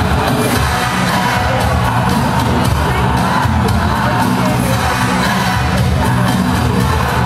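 Latin dance music with a steady beat and a strong bass, playing loudly and continuously for a Latin formation dance.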